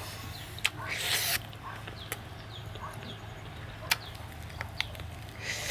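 Wet chewing and lip-smacking as a man gnaws steamed snake meat off the bones: a scattering of short sharp smacks and clicks, with a brief noisy slurp or suck about a second in.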